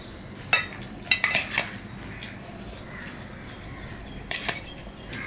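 Steel spoon clinking and scraping in a stainless steel bowl as rice is scooped out: a sharp clink about half a second in, a quick cluster of clinks around a second to a second and a half in, and another near the end.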